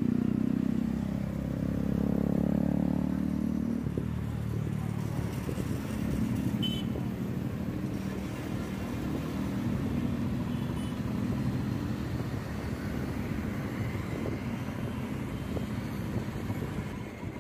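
Road traffic heard from a moving vehicle: engines of cars and motorcycles running with steady road and wind noise. The engine hum is loudest in the first few seconds.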